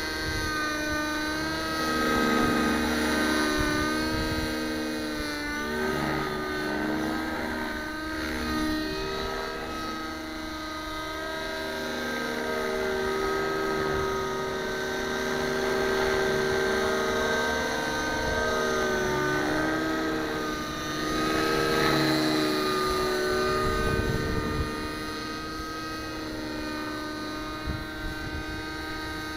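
Nitro RC helicopter (JR Vibe 55 with an OS glow engine) in flight: the high-revving glow engine and rotor whine run steadily, the pitch wavering up and down and the loudness swelling and fading as it manoeuvres through the air.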